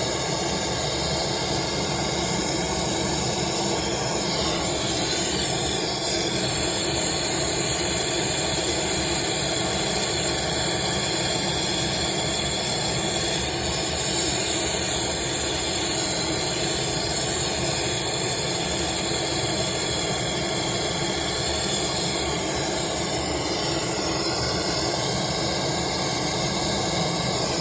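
Steady mechanical hiss over a low hum, with several faint steady tones and no change in level, typical of HVAC machinery running.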